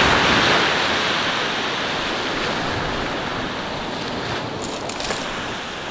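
Small surf on a sand beach: a wave washes up and its hiss slowly fades as the water runs back.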